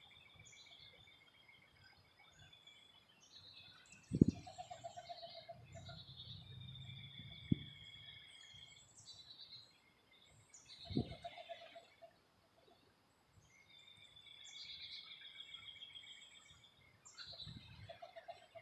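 Birds calling and chirping in a backyard, with high drawn-out calls repeating, and sharp thumps about four, seven and a half and eleven seconds in.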